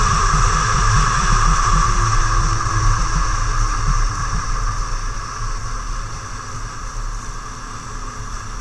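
Snowmobile engine running at speed while riding along a packed snow trail, with a steady drone that eases and gets gradually quieter over the second half.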